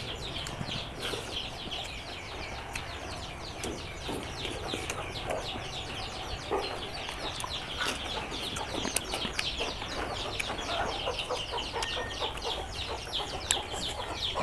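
Chickens clucking and cheeping steadily, a dense run of quick, high, falling chirps with a few faint clicks among them.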